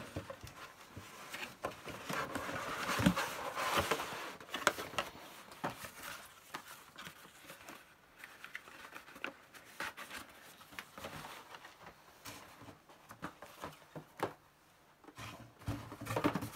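Cardboard software boxes, paper manuals and packaging being handled: rustling and crinkling with scattered taps and knocks. The handling is busiest a few seconds in, thins out, then picks up again near the end.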